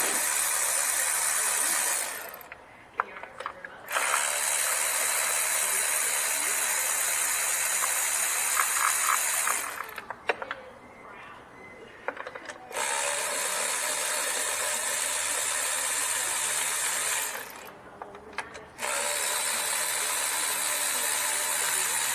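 Power ratchet running on a spark plug socket to unscrew the spark plugs: a steady hiss in three long runs, each broken by a short pause with a few clicks of the socket.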